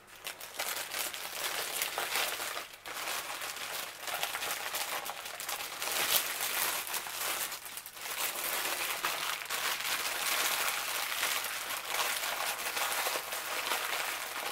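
Thin plastic packaging crinkling and crackling as it is handled and unwrapped, with two short lulls, about three and eight seconds in.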